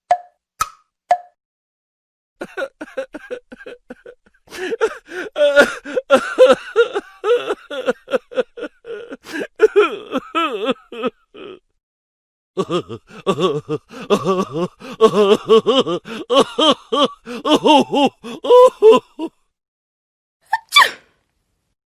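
Comedy sound effects: a few short pitched plops, then two long runs of rapid, garbled, voice-like chatter whose pitch bends up and down, and a short rising sweep near the end.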